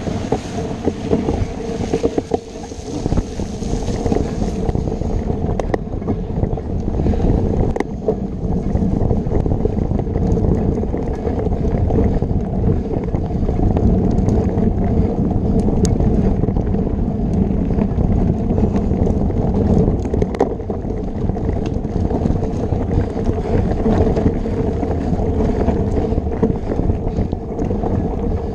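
Wind buffeting and rumble on a camera microphone carried on a mountain bike riding a rough dirt trail, with scattered knocks and rattles as the bike goes over bumps.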